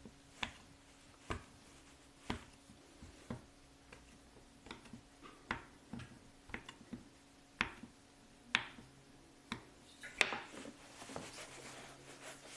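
Kitchen knife cutting a log of soft biscuit dough on a wooden cutting board: sharp taps of the blade on the board, irregular, about one a second. Near the end, soft rubbing as pieces of dough are rolled into balls between the palms.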